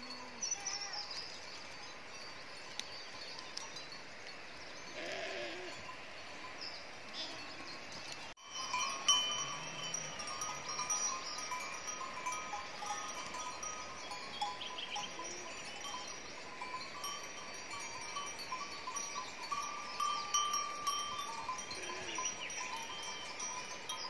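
A flock of sheep grazing, with a few bleats about five seconds in and near the end, over a steady high-pitched ringing.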